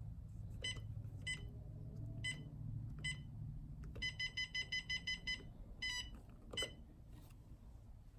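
Key-press beeps from a Humminbird Helix 7 fish finder as its buttons are pressed to scroll through the sonar colour palettes: four single short high beeps, then a quick run of about ten beeps, about seven a second, then two more.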